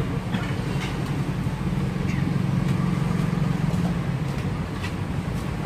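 Steady low rumble of a motor vehicle engine, growing louder about two seconds in and easing off again, with a few faint clicks over it.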